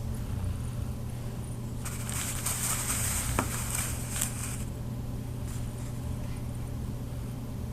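Snoring: one long, hissy breath starting about two seconds in and lasting two to three seconds, with a brief rising squeak partway through, over a steady low hum.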